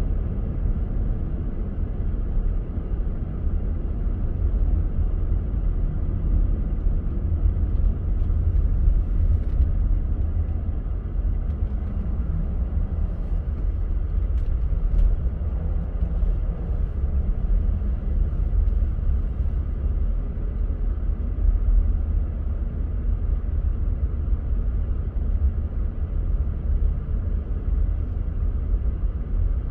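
Car driving along: a steady low rumble of road and engine noise, with a few faint ticks about halfway through.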